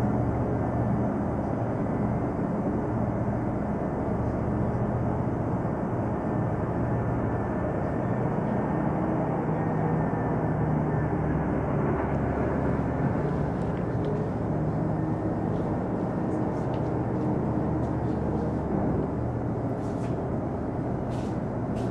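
Steady low drone of heavy mining machinery and haul truck engines working across an open-cut pit, with no break or change.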